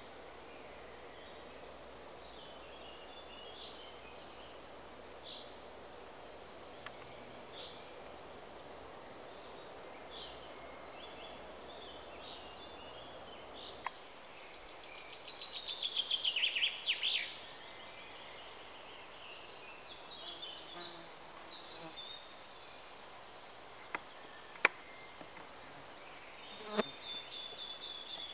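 Woodland songbirds singing over a steady background hush: short high chirps throughout, one loud trilled phrase falling in pitch about halfway through, and a high thin buzzing phrase twice. A few sharp clicks come near the end.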